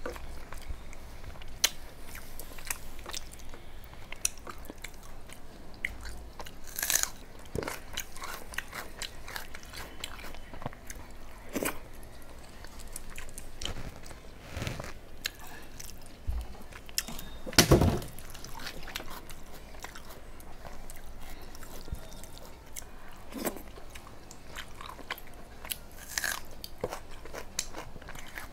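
A person chewing and biting a mouthful of rice and curry eaten by hand, with scattered short crunches and mouth clicks; the loudest crunch comes about two-thirds of the way through.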